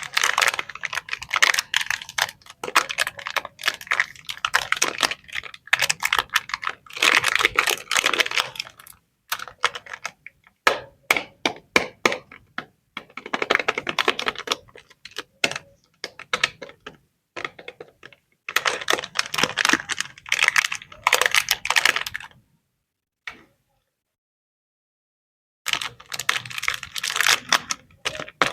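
Chocolate and snack packaging being handled and opened: wrappers and packets crackle in rapid bursts of clicks, with a pause of a few seconds near the end.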